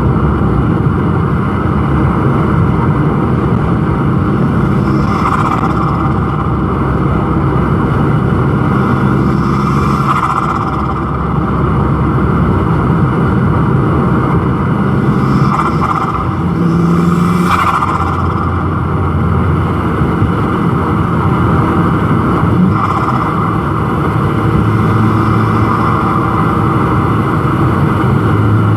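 Turbocharged Volkswagen Golf GTI engine, breathing through an aftermarket intake, accelerating repeatedly, its pitch rising and falling. Several brief hissing bursts when the throttle comes off are the turbo flutter.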